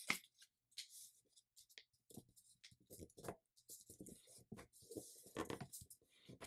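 Faint, irregular rustling and scraping as fingers press and slide along a sheet of paper, folding and flattening creases by hand.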